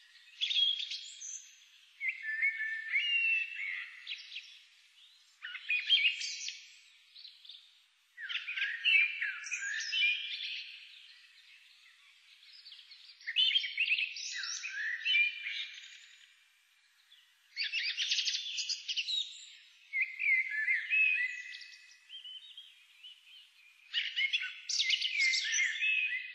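Small songbirds chirping and twittering in about nine high-pitched bouts, each lasting a second or two and coming every two to three seconds.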